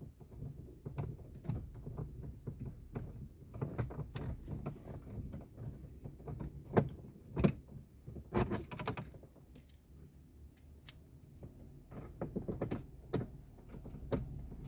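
Screws and a screwdriver clicking, rattling and knocking against the car stereo's mounting in the dashboard as the unit is screwed in place. The clicks are scattered and uneven, with a few louder knocks in the middle.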